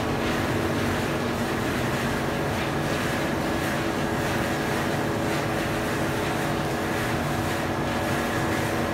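Gas-fired rotating-drum tea fixation machines running: a steady mechanical drone, with a few steady humming tones over a rushing noise.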